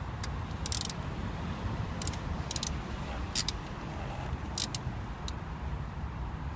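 Hand socket ratchet clicking in six short runs as it is swung back and forth, doing up the bolt of a crankshaft position sensor, over a steady low rumble.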